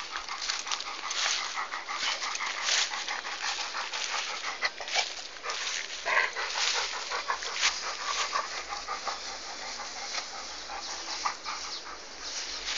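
A dog chewing a stalk of sugarcane: quick, irregular crunching and wet chewing sounds.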